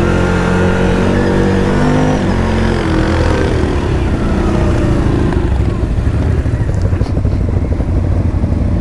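ATV engine running at low speed, its pitch easing down slightly over the first few seconds, then settling into a rougher, even rumble.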